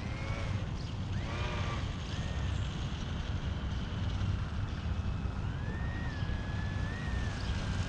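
Wind rumbling on the microphone, with two short pitched calls in the first two seconds and a faint thin whine that rises and dips over the last few seconds.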